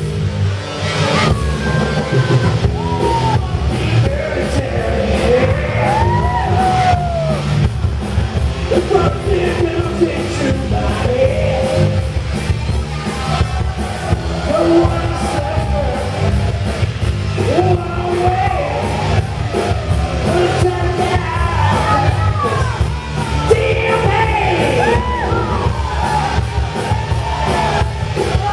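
Live rock band playing loud through a PA: electric guitars, bass and drums, with yells and whoops rising and falling over the music.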